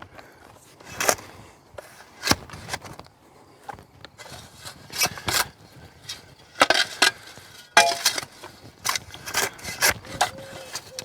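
Hand digging in soil: irregular scrapes and knocks of a tool working the muddy ground, about a dozen strokes at uneven intervals.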